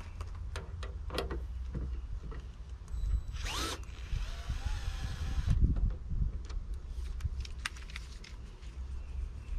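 Small cordless electric screwdriver unscrewing a windscreen mounting screw: a short burst a little over three seconds in, then a steady motor whine for about two seconds. Scattered handling clicks come before and after.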